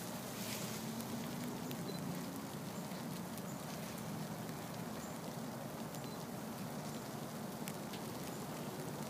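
Steady rain falling on wet stone paving, an even hiss with a few faint scattered drop ticks.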